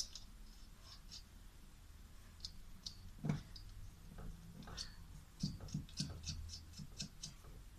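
Faint clicks and light metallic knocks of a turbocharger and exhaust manifold assembly being handled and its fittings undone by hand, with one firmer knock about three seconds in and a quick run of ticks later.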